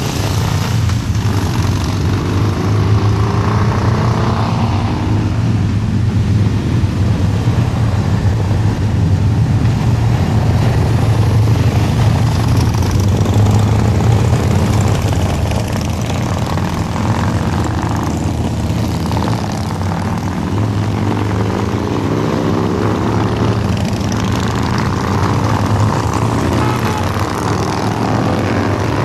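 Several large cruiser and touring motorcycles riding past one after another through a hairpin, their engines making a loud, continuous rumble. The engine notes rise and fall as bikes pass, most clearly near the start and in the last few seconds.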